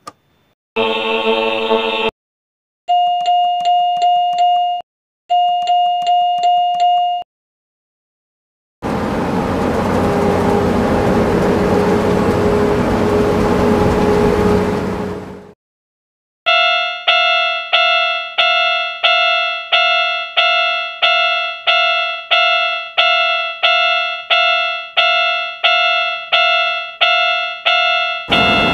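Railroad crossing warning bells ringing in several separate bursts with short silences between them. In the middle a steady rushing noise with a low hum lasts about seven seconds. The last twelve seconds are a long run of ringing strikes, about two a second.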